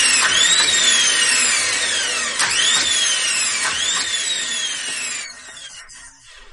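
Small electric motor whining at high speed, pulsed several times: each time the pitch jumps up quickly and then slowly falls as it coasts, over a hissing rush. It fades out about five seconds in and stops near the end.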